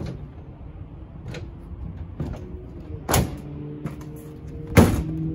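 A few separate knocks and clunks of gear and storage in a work truck being handled and shut. The loudest comes near the end, and a steady low hum comes in past the middle.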